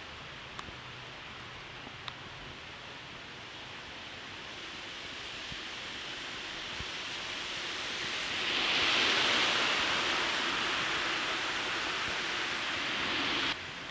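Car tyres hissing on wet asphalt as traffic passes close by, swelling to its loudest about nine seconds in. The sound cuts off suddenly near the end.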